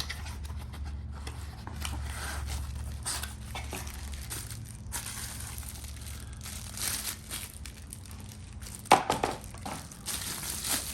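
Crinkling and tearing of a knife's packaging wrapping as it is unboxed, with a cluster of sharp clicks and snaps about nine seconds in.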